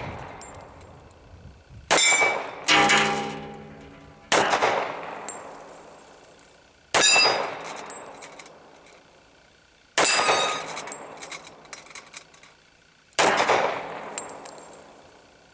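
Ruger SR1911 .45 ACP pistol fired six times at a slow pace, each shot trailing off over a second or two. Two shots come close together about two seconds in, then one every two to three seconds. After the second shot a steel plate target rings for about a second.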